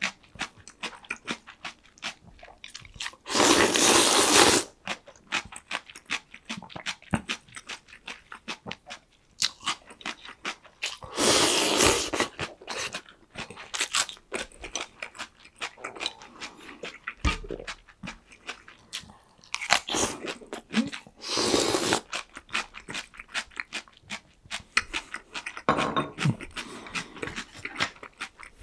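Close-up crunchy chewing of breaded, fried pork cutlet (donkatsu), with dense crackling bites. A few louder rushing stretches about a second long break in, around four seconds in, near twelve seconds and twice near twenty-one seconds.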